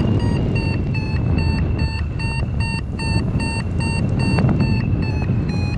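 Paragliding variometer beeping evenly, about three beeps a second at a steady pitch: the climb tone of the glider going up in weak lift. Wind rushes on the microphone underneath.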